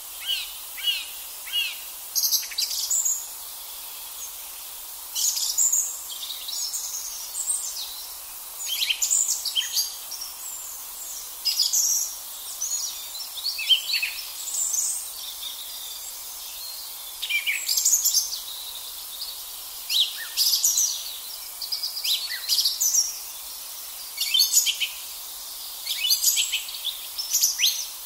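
Song thrush singing: short, loud phrases of whistles and sharp notes, some repeated two or three times in a row, separated by pauses of a second or two.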